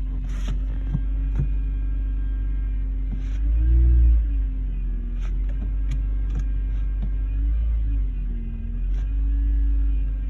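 Ford Focus engine idling, revved briefly about four seconds in and dipping near eight seconds, with irregular sharp ticks over the running. It carries an unusual engine noise that the owner says grows when the throttle is opened.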